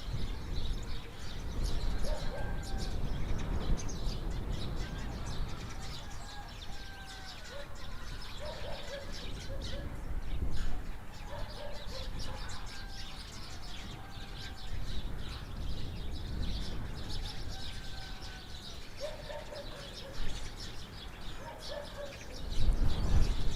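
Village outdoor ambience: small birds chirping and calling repeatedly, with a steady low rumble underneath.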